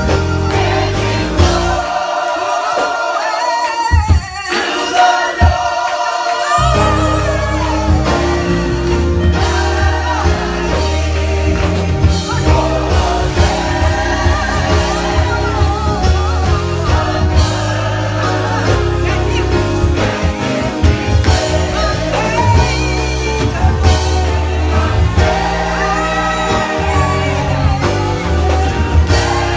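Gospel choir singing with a full band. The bass and drums drop out about two seconds in and come back in after a few seconds.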